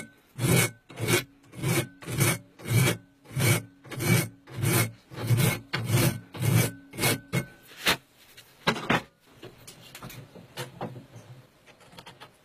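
A hand file worked back and forth across a metal workpiece clamped in a bench vise, in steady strokes just under two a second. After about eight seconds the strokes stop, and only lighter, scattered scraping follows.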